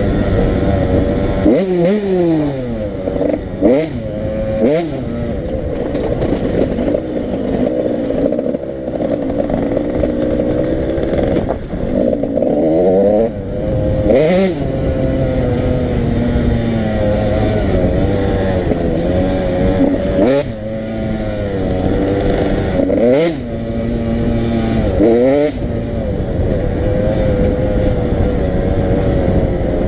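85cc two-stroke dirt bike engines running hard, their pitch repeatedly climbing and then dropping sharply as they rev and shift or pass by.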